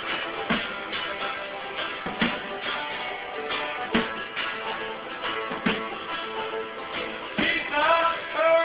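Rock-style music with guitar and a steady drum beat; a singing voice comes in near the end.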